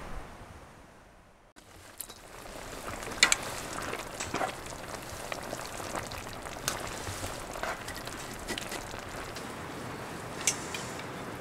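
Steady noisy hiss with scattered light clinks and taps of a metal ladle, bowls and chopsticks as hotpot udon is served and eaten. The hiss comes in after a near-silent dip at the start.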